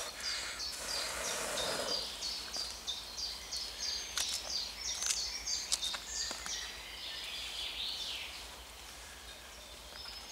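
A songbird repeats a short high note about three times a second, with a few sharp knife taps on a cutting board in the middle. In the first two seconds a rush of breath blows into the small wood stove's fire.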